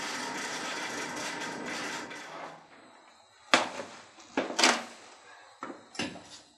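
A steady scraping, grinding noise that stops about two and a half seconds in, followed by a few sharp knocks as small steel knife parts are set down and handled on a steel anvil, two loud ones close together, then two lighter ones near the end.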